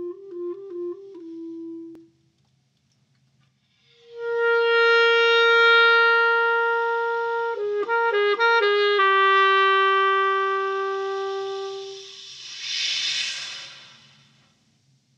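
Solo clarinet in a contemporary piece. A quick run of short notes stops about two seconds in. After a pause comes a long held note, a brief rapid trill, and a second held note, ending in a breathy rush of air that swells and fades.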